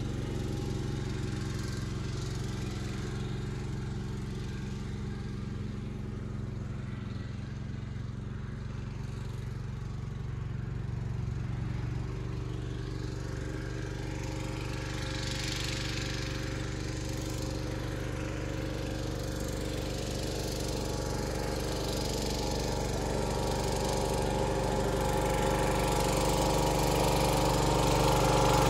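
A 1978 John Deere 316 garden tractor's freshly rebuilt twin-cylinder engine runs steadily as the tractor is driven, getting louder over the last several seconds as it comes closer.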